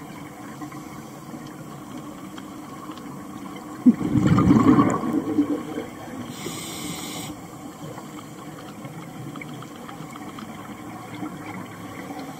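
Scuba diver's breathing heard underwater through the camera: a loud rush of exhaled bubbles from the regulator about four seconds in, then a short high hiss of inhaling through the regulator, over a steady underwater hiss.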